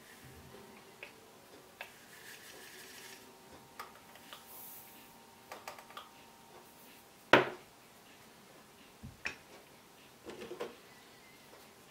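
Handling noises from a BGA reballing jig and a small plastic jar of solder balls: a fine rattling hiss of solder balls pouring for about a second, scattered light clicks, and one sharp knock about seven seconds in as the metal jig is set down.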